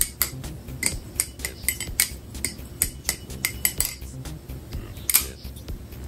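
JK Design Orca balisong (butterfly knife) being flipped: an irregular run of sharp metallic clicks and clacks from the handles and blade swinging and knocking together, a few per second, with one louder clack about five seconds in.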